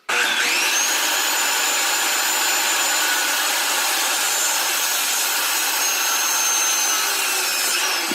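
Electric power saw cutting a 4x4 wooden post. The motor whines up sharply at the start, runs steadily through the cut, and begins to wind down near the end.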